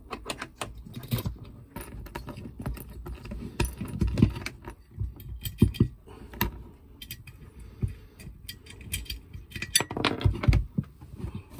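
Small metal clicks and clinks of a nut, washer and ring crimp terminal being handled and fitted by hand onto the threaded terminal stud of a galvanic isolator, with a louder clatter about ten seconds in.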